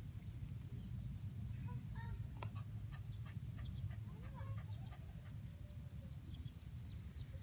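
Faint chicken clucking, a few short scattered calls, over a steady low rumble.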